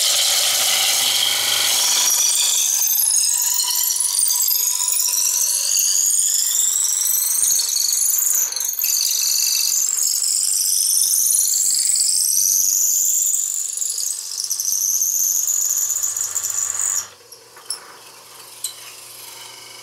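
Veritas 3/8" dowel maker cutting a chinaberry blank spinning on a wood lathe at about 3,000 RPM: a loud, shrill squeal whose pitch wavers and glides up and down as the cutter is fed along the blank. The squeal stops abruptly near the end, followed by two light clicks.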